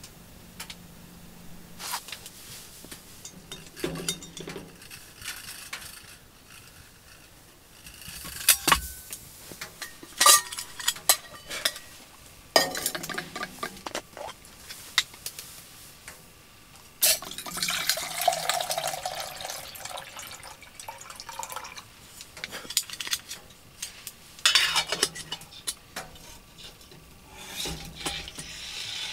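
Clinks and knocks of a metal cooking pot and utensils on a wood stove top, with water poured from a bottle into the pot for a few seconds past the middle.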